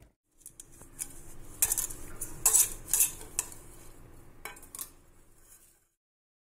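Metal cake tin clinking and rattling as it is dusted with flour from a plastic sieve and handled, a string of sharp taps, loudest about two to three and a half seconds in; the sound cuts off suddenly near the end.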